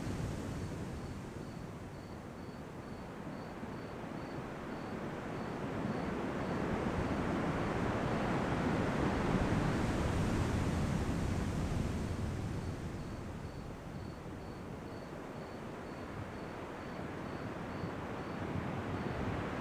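Ocean surf at night: a wash of breaking waves that slowly swells to a peak about halfway, ebbs, and builds again near the end. A faint, high chirp repeats about three times a second for several seconds at a stretch.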